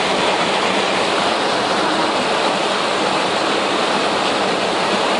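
Fast-flowing floodwater rushing past and against a stranded car, heard from inside the car as a steady, even rush of water.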